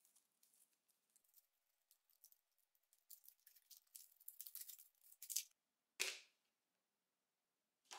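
Foil wrapper of a Kinder Surprise Maxi chocolate egg crinkling and rustling as it is peeled off, busiest in the middle. About six seconds in comes a single sharp crack, the loudest sound.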